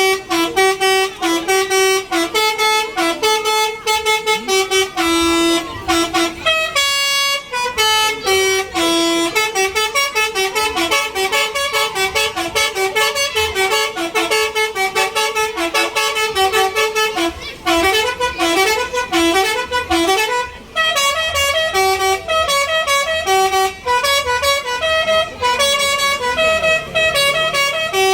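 A bus's multi-trumpet basuri 'telolet' horn playing fast melodic tunes, short notes stepping up and down in pitch, almost without a break.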